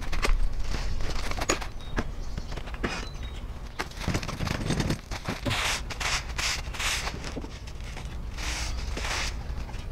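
Hand work with a shovel and a tipping yard cart in loose garden soil: scraping, soil pouring and sliding, footsteps and scattered knocks.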